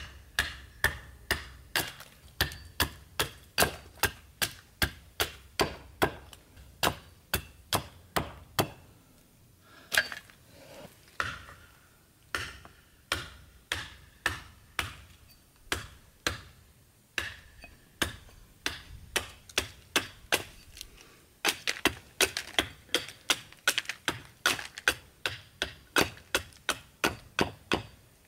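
Hatchet chopping chips off a green tan oak handle blank held upright on a chopping block, roughing out the handle's shape. A steady run of sharp chops, about two to three a second, with a few brief pauses.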